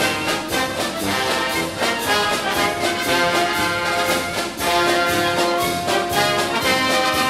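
Orchestral music led by brass, with sustained notes over a steady beat.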